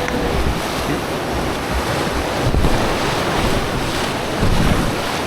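Rushing whitewater of a river rapid around a raft, a loud steady roar, with wind buffeting the microphone.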